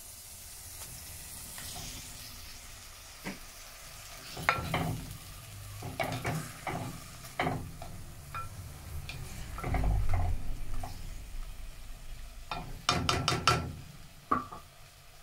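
Mussels being added to and stirred in a clay cooking pot over a low sizzle, their shells clacking against each other and the pot in scattered knocks, with a quick run of clatters near the end.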